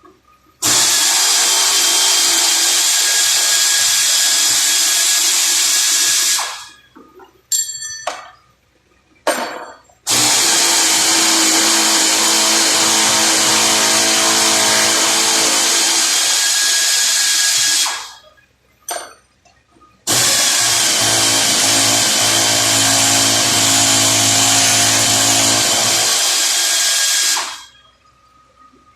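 A power tool run three times, about six to eight seconds each, starting abruptly and winding down at the end of each run, with a few short knocks in the pauses between.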